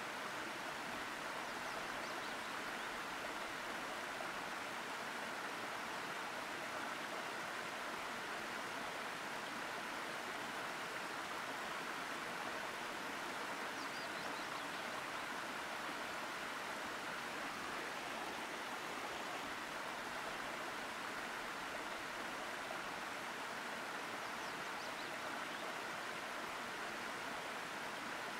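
Waterfalls pouring into a pool: a steady, unbroken rush of falling and splashing water.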